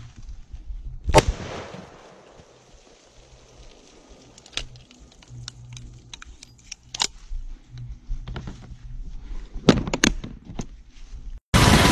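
A single revolver shot about a second in, followed by a scatter of small metallic clicks and clacks as a pistol and a plastic gun case are handled, with two sharper snaps near the end. A loud continuous noise cuts in during the last half second.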